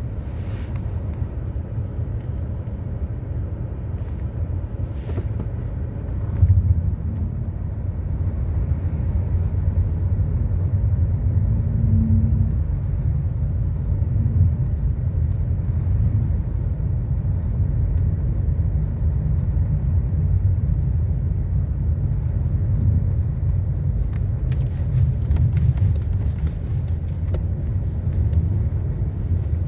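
Hyundai Solaris running, a steady low rumble, with faint short high chirps coming and going and a few clicks and ticks: an extraneous noise from the car that its owner is trying to pin down.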